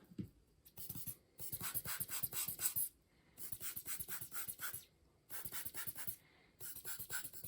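Small threaded metal adapter rings being screwed together by hand, giving four bursts of fast, fine ticking as the threads turn.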